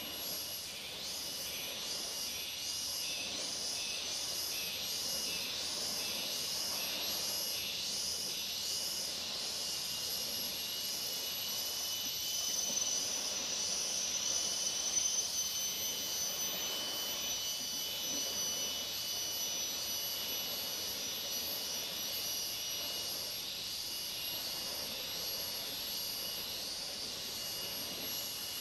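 Chorus of tropical insects: several steady high-pitched trills over a rhythmic pulsing buzz.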